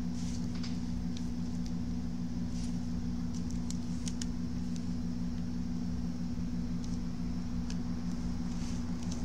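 Steady low machine hum of workbench equipment, with a few faint light clicks from small parts being handled.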